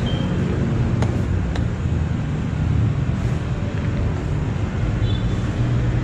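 Steady low motor rumble, with two faint clicks about a second and a second and a half in.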